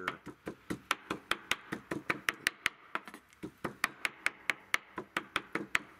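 Large kitchen knife chopping raw bear backstrap on a wooden cutting board, a steady run of quick knocks about five a second: the meat being minced into burger by hand.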